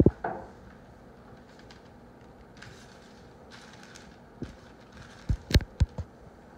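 Handling knocks from a wooden model-airplane wing and small tools being moved about on a tabletop. There is a thump at the start, then a quick cluster of sharp knocks and one bright click about five to six seconds in.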